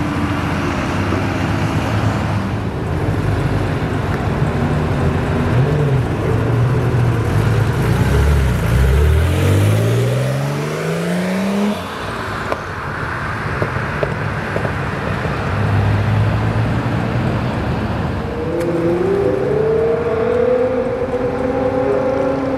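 High-performance car engines accelerating one after another. In the middle, one engine climbs steadily in pitch through a long hard pull. The sound changes abruptly about twelve seconds in, and near the end another engine note rises and falls.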